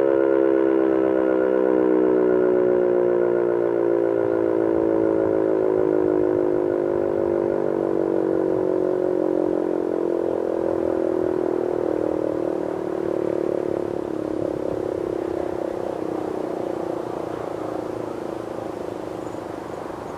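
Outdoor warning siren winding down: its chord of several tones slides slowly lower in pitch and fades over about twenty seconds.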